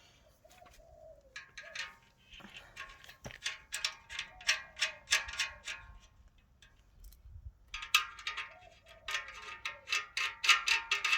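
A dove cooing in the background, in several low phrases, with two long runs of quick sharp ticks.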